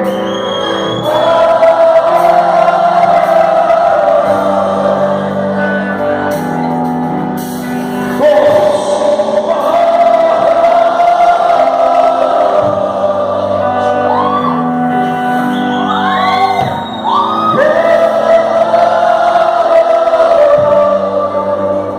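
Gospel worship song: a sung melody with long held notes and upward glides over sustained chords.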